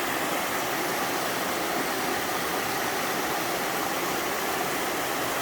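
Mountain stream pouring down a five-tiered sliding waterfall over rock: a steady, even rush of water that does not change.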